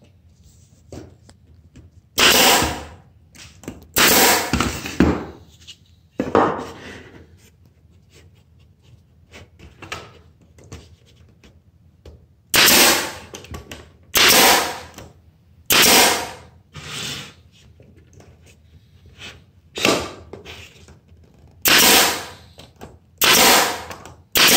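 Pneumatic air stapler firing staples into wooden boards, about eight sharp shots at uneven intervals, with a gap of several seconds in the middle filled only by faint handling of the wood.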